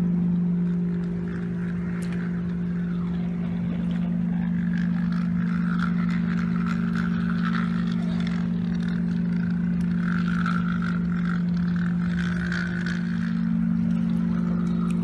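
Small electric motor and gears of a battery-powered Thomas and Friends toy engine whirring with a steady hum as it runs along plastic track.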